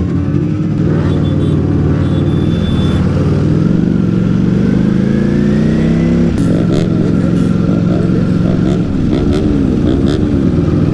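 Ducati Panigale V4 S's V4 engine, heard from the rider's seat, pulling in first gear with its pitch climbing, then dropping sharply about six seconds in as the rider shifts up and runs on steadily.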